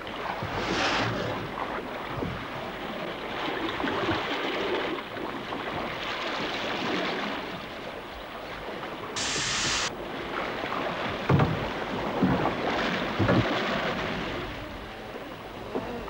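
Sea waves splashing and slapping around an open wooden whaleboat, with wind buffeting the microphone. A short burst of hiss about nine seconds in, then three dull knocks a second or so apart.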